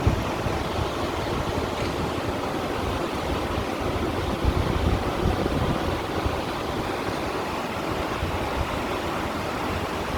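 Sea water washing against stones at the shoreline, a steady splashing and rushing of small waves, with a low wind rumble on the microphone.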